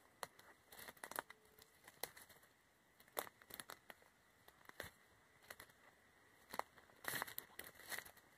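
Footsteps through forest leaf litter and undergrowth: faint, irregular crackles and rustles of leaves and twigs underfoot and brushing past.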